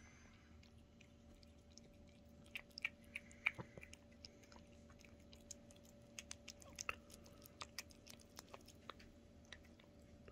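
A cat eating soft pâté wet cat food from a stainless steel tray: faint, irregular wet chewing and licking clicks, a few sharper ones, over a faint steady hum.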